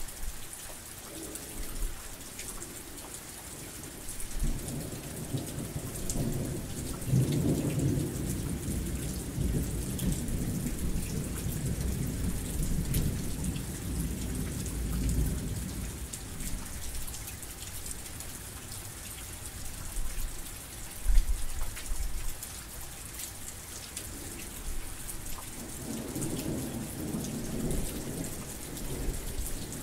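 Heavy rain falling steadily, a dense hiss with the patter of individual drops. Thunder rumbles low from about four seconds in, fades out past the middle and rolls again near the end, with one sharp thump about two-thirds of the way through.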